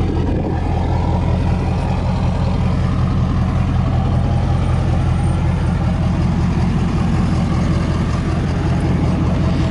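Diesel engine of a 2011 Ford F-250 idling steadily: a low, even hum that does not change.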